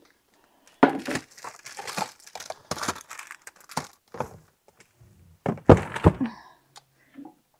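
Rummaging through pantry shelves: a plastic bag crinkling and items being moved and knocked together in short irregular bursts, with the heaviest thunks about five and a half to six seconds in.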